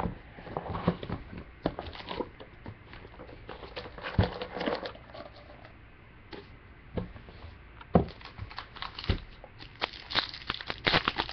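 A cardboard trading-card box is handled and opened and a stack of foil card packs is lifted out, giving scattered knocks and rustles. Near the end a foil pack wrapper crinkles and tears as it is pulled open.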